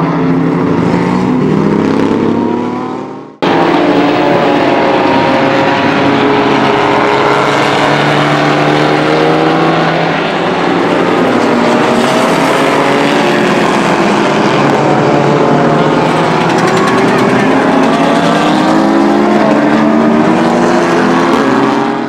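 Renault Mégane Trophy race car's V6 engine running hard at speed, fading away about three seconds in. After an abrupt cut, race car engines run hard with several pitches rising and falling at once as the cars accelerate and shift.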